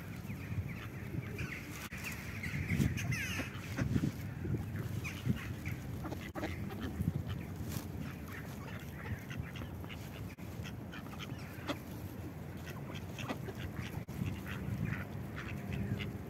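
A flock of mallard ducks feeding on grass, quacking among themselves throughout, with scattered short clicks and rustles.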